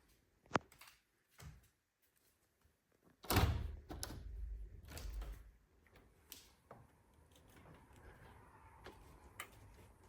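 Household knocks and clicks: a sharp click under a second in, then a heavier thud with a low rumble lasting about two seconds, followed by a faint steady background and one more click near the end.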